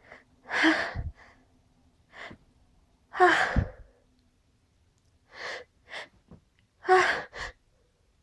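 A person's sharp, partly voiced gasping breaths as they build up to a sneeze. There are three loud gasps about three seconds apart, with smaller catches of breath between them.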